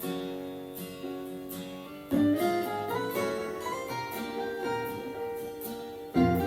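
Instrumental intro of a Mandarin pop song: plucked-string and keyboard notes over held chords, with a fuller, louder chord coming in about two seconds in and again near the end. It is played from a phone over Bluetooth through an old home-assembled stereo.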